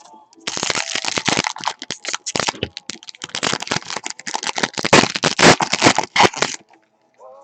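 Wrapper of a trading-card pack being torn open and crinkled: a dense, irregular crackle of sharp clicks for about six seconds, stopping abruptly near the end.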